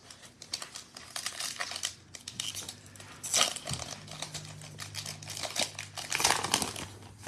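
Foil wrapper of a Panini Prizm football card pack crinkling and tearing as it is handled and ripped open, with louder crackles about three and a half and six seconds in.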